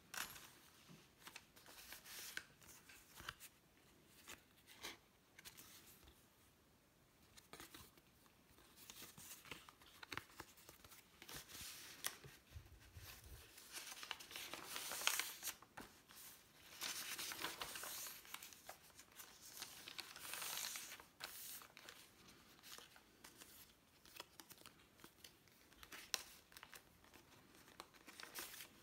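Faint, irregular rustling and crinkling of the paper pages and cards of a handmade junk journal as they are handled and turned, with soft scratchy brushing of the hands on paper.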